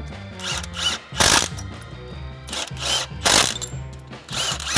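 A cordless ratchet running bolts down on a supercharger drive in a series of short bursts, over background music.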